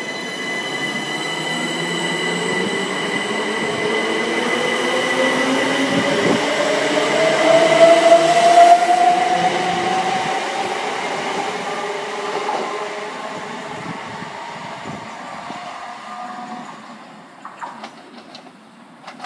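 c2c Class 357 Electrostar electric multiple unit pulling away from the platform. Its traction motors whine in rising tones as it gathers speed; the sound is loudest about halfway through, then fades as the train draws away.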